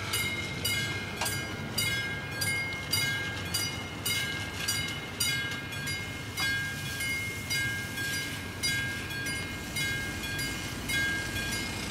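Railway level-crossing warning bell ringing in a steady rhythm, about two strikes a second, each strike ringing with several clear tones.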